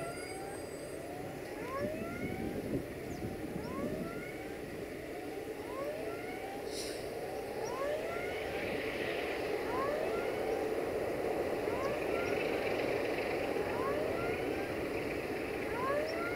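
Diesel engine of a 060-DA (LDE2100) diesel-electric locomotive running as it approaches with a freight train, growing slowly louder. Over it, a short rising chirp repeats a little more than once a second.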